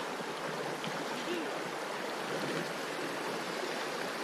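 River running high with a strong current: a steady, even rush of water.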